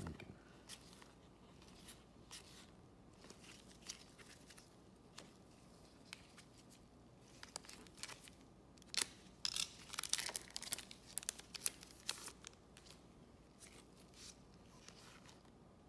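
Trading cards being handled and shuffled, with light scattered clicks, then a box-cutter blade slitting open a trading-card pack wrapper about nine seconds in: a quick run of crisp scraping and tearing that lasts about three seconds and is the loudest part.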